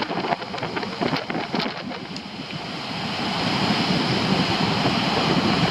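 Ocean surf washing in, with wind buffeting the microphone. The rush of water builds over the second half and cuts off suddenly at the end.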